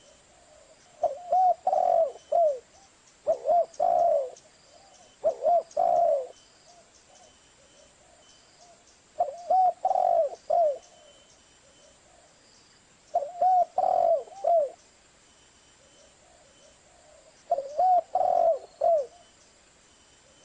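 Spotted dove cooing: short phrases of several low, arching coos, repeated about six times with pauses of a second or more between them.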